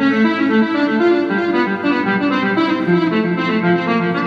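Electric guitar playing a fast melodic run of single notes, swelled in on a Seymour Duncan YJM speed volume knob, so the notes fade in without a pick attack and sound almost like a keyboard or clarinet.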